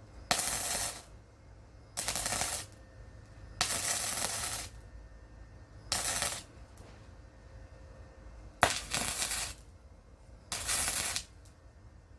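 Electric arc welding on a greenhouse's steel pipe frame at the 45-degree ridge joint: six short crackling, hissing bursts of the arc, each lasting about half a second to a second, as the joint is tacked in separate short welds.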